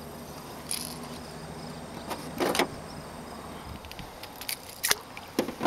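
A few light knocks and rustles of handling in a small boat, over a faint steady low hum.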